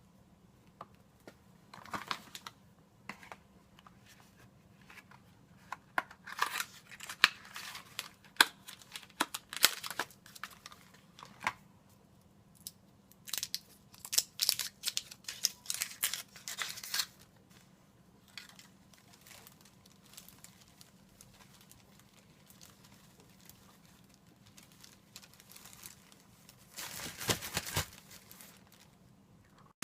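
Dry, papery onion skin crinkling and tearing as an onion is peeled by hand, in irregular bursts of sharp crackles and rustles. A denser stretch of rustling comes near the end.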